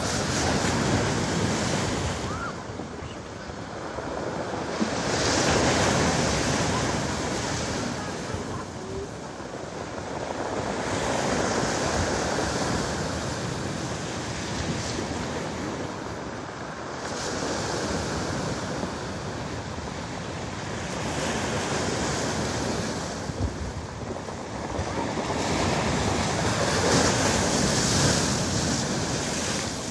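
Storm surf breaking on a pebble beach, the waves swelling and crashing in surges every few seconds. Wind buffets the microphone throughout.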